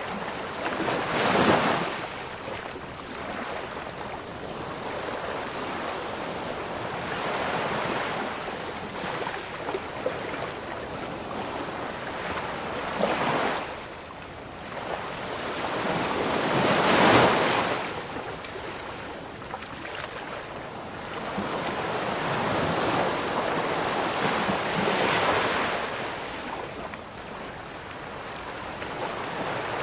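Ocean waves breaking and washing in, a steady rush of surf with louder crashes swelling up every few seconds, the biggest about a second in and around seventeen seconds in.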